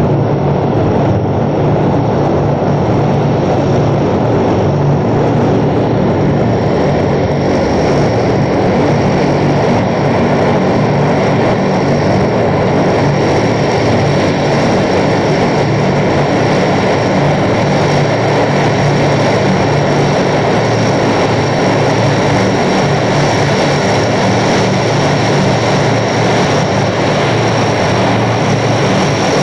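Four Allison T56 turboprop engines of a C-130 Hercules running as it taxis: a loud steady drone, joined several seconds in by a high steady whine that holds.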